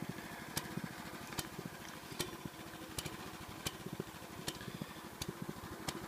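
The small gasoline engine of a Hudson walk-along portable bandsaw mill idling quietly with the blade not yet engaged, with a sharp click about every second.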